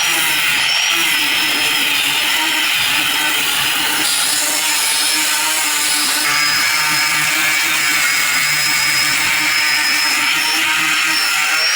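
Power tool running steadily with a high, slightly wavering whine, spinning a homemade sandpaper flap wheel made from glued strips of sandpaper, sanding against a surface.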